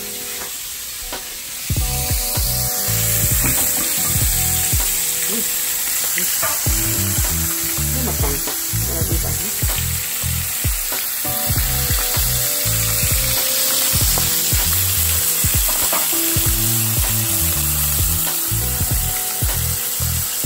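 Whole fish deep-frying in a pan of hot oil: a loud, steady sizzle that comes in about two seconds in. Background music with a bass beat plays under it.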